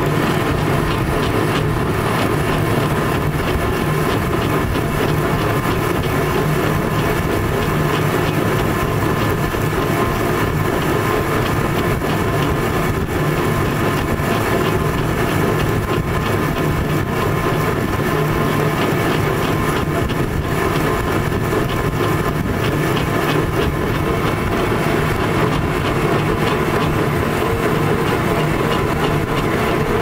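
Metal lathe running steadily while turning a steel part for a hydraulic cylinder: a constant machine hum with several steady higher tones.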